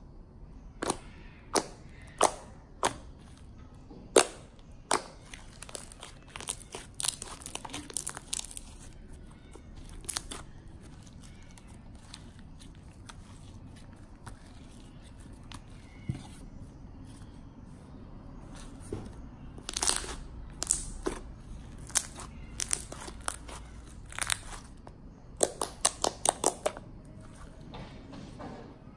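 Soft pink Elmer's glue slime being squished, folded and stretched by hand, giving off irregular sharp little clicks and pops, with a sparser stretch in the middle and a dense run near the end.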